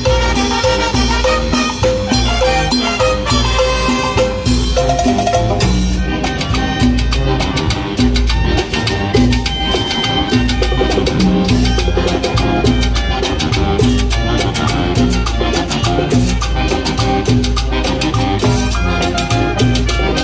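Brass band playing a Latin dance tune: trumpets over congas, timbales and a drum kit, with a steady beat.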